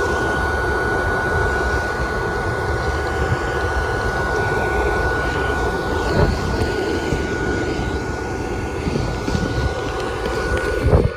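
Small electric blower fan of an airblown Christmas inflatable (120 V, 2950 RPM) running steadily, heard close up inside the inflated fabric. It makes a whooshing whir with a rumble and a constant high hum, plus a few light handling bumps.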